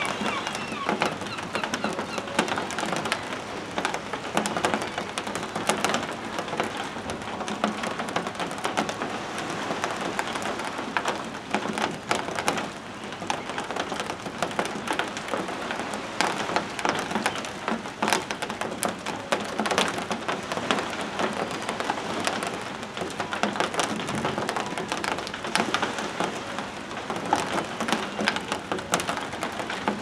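A large flock of gulls bathing and moving about in shallow water: a steady, dense crackle of splashing and flapping mixed with bird calls.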